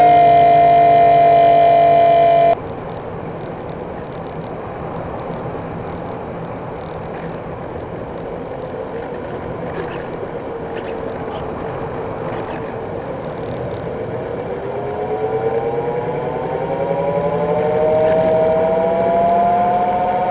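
The E-Do Model SkyEye RC plane's single electric motor and propeller whine steadily, then cut off abruptly about two and a half seconds in, leaving wind rush on the onboard camera's microphone while the plane glides low with the throttle closed. From about fourteen seconds in, the motor whine comes back and climbs in pitch as the throttle is opened again.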